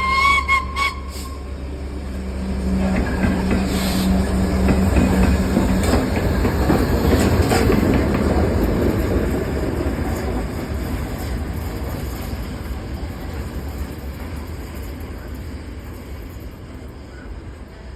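A Class 66 diesel locomotive passing with the A1 steam locomotive Tornado. A high whistle ends about a second in. The diesel's low engine drone and the clatter of wheels over the rail joints build for a few seconds, then fade away as the train moves off.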